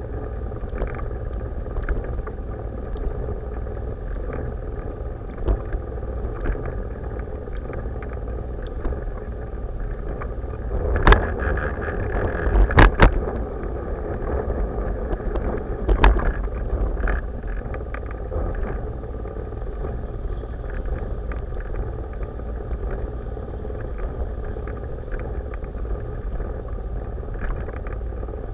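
Wheels of an Evolve 4000 HD Sport board rolling over city pavement: a steady low rumble with small clicks from the paving. A few louder knocks come around the middle as it rides over bumps.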